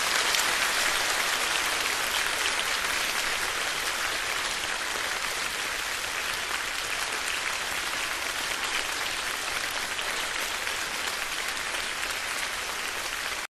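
Theatre audience applauding steadily, a dense patter of clapping that slowly grows a little quieter.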